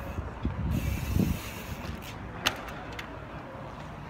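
Mountain bike hopping on its back wheel on stone paving: low thuds of the tyre landing in the first second or so, then a sharp click about two and a half seconds in.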